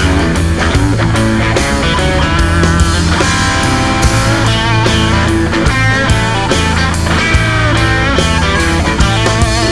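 Instrumental break in a guitar-driven country-rock song: a lead guitar plays bending, wavering notes over steady bass and drums.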